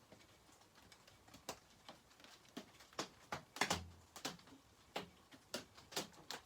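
Light, irregular clicks and taps of chainsaw parts being handled and fitted together during reassembly, about a dozen in all, with a slightly heavier knock near the middle.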